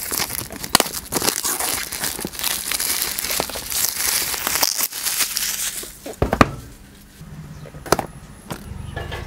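Thin plastic shrink wrap being peeled off a smartphone's cardboard box and crumpled in the hand, a dense crinkling and crackling for about six seconds. After that come a few separate light clicks as the box is handled.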